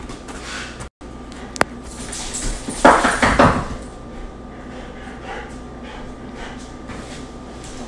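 A Belgian Malinois and a man play-fighting over a pillow: a short burst of scuffling and dog noise about three seconds in, over a faint steady hum.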